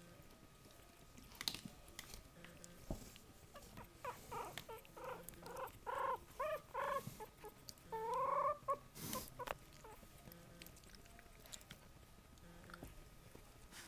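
An 18-day-old Havanese puppy squeaking: a quick run of about six short squeaks, then one longer rising squeal, over rustling of fur and bedding as it is handled, with a sharp click just after the squeal.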